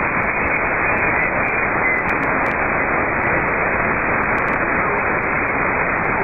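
Steady static hiss from a shortwave radio receiver tuned to 28.477 MHz upper sideband on the 10 m amateur band, with no station on the frequency: only band noise.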